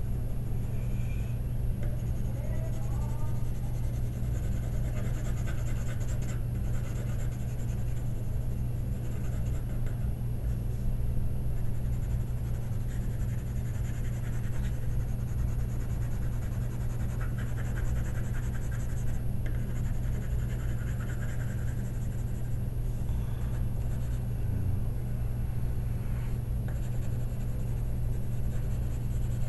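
Graphite pencil scratching and rubbing across paper while shading, over a steady low electrical hum that is the loudest thing throughout.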